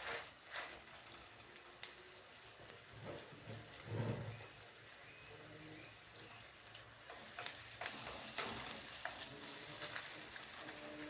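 Beef burger patties frying in hot oil in a pot: a steady sizzle with scattered crackles and pops.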